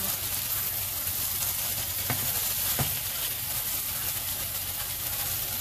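Pork loin pieces sizzling steadily as they fry in oil in a frying pan. There are two sharp clicks a little under a second apart, about two seconds in, from the metal tongs turning the meat.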